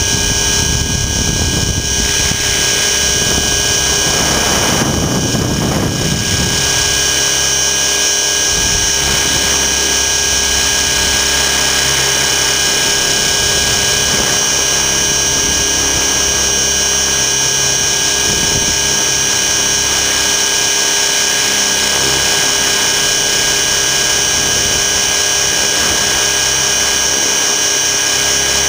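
Align T-Rex 600 ESP electric RC helicopter in flight, heard from a camera on its frame: a steady high whine from the motor and drive gears over the rotor's hum. A low rumble fades out about six seconds in.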